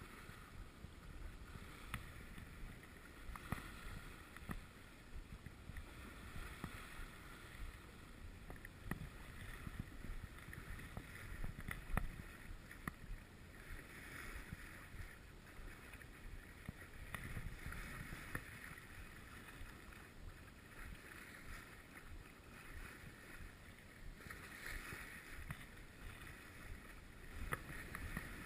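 Water washing and splashing along a sailboat's hull as it moves, with wind buffeting the microphone and a few small knocks scattered through it.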